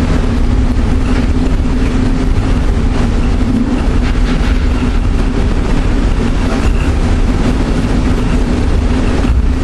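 LINK Train, a cable-hauled airport people mover, running steadily along its elevated guideway, heard from inside the car: a continuous rumble with a constant low hum.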